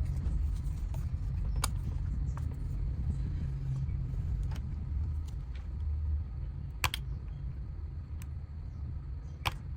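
Steady low rumble with a few sharp clicks, about a second and a half in, near seven seconds and near the end, from parts and tools being handled while taking apart a portable Bluetooth speaker.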